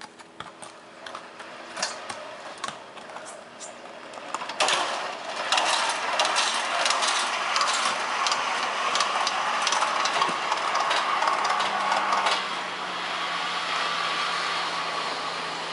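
Trolleys carrying bagged banana bunches rolling along an overhead plantation cableway behind a horse, a dense metallic clatter and rattle. It swells sharply about four to five seconds in, stays loud, and eases after about twelve seconds, when a low steady hum comes in.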